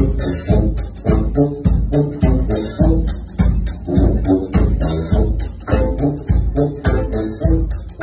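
Live horn band playing an upbeat tune: saxophones, trombone and tuba over a drum kit, with a strong steady beat.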